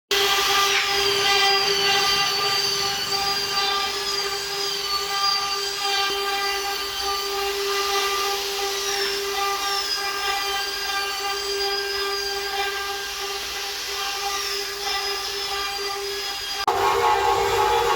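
CNC wood router spindle running with a steady high-pitched whine, its tone shifting and growing louder near the end.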